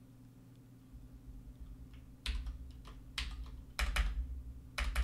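Keystrokes on a computer keyboard: quiet for about two seconds, then a handful of separate key presses, two or three a second, as a short search is typed.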